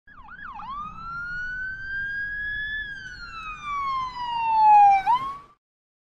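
Electronic emergency-vehicle siren: two quick up-and-down yelps, then one slow wail that rises and falls, ending in a short upward chirp that cuts off suddenly.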